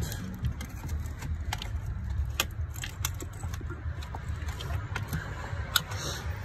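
Scattered metallic clicks and clinks of tools and parts being handled during a starter replacement, over a low rumble of handling noise.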